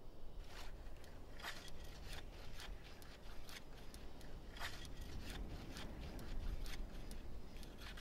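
Irregular scraping and crunching strokes on ice, about one or two a second, with a low rumble under them.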